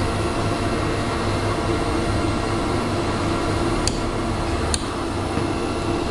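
Steady machine drone with a low hum. Two sharp metallic clicks come about four and five seconds in, from an Allen key worked with an adjustable wrench on the blower wheel's set screw.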